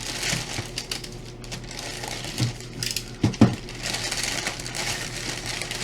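Packaging being handled and opened: crinkling and rustling with scattered clicks, and a few louder knocks about two and a half to three and a half seconds in.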